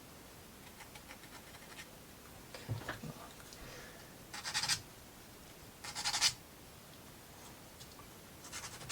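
Plywood model parts scraping against each other in two short rasping scratches, with a few light wooden knocks, as pieces of a UGEARS wooden kit are handled and pushed together.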